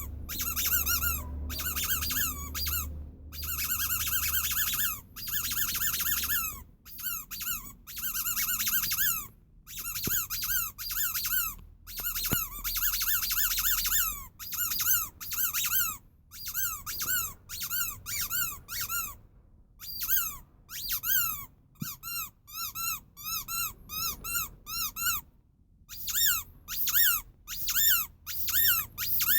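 Rubber sheep squeaky toy squeezed over and over, each squeeze giving a high squeak that rises and falls in pitch. Some squeezes are long and held, and some come in quick runs of short squeaks.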